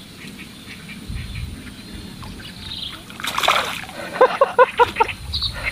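A hooked fish thrashing and splashing at the water's surface as it is pulled in on a fishing pole line, starting about three seconds in. A short run of quick pulsed calls sounds over the splashing.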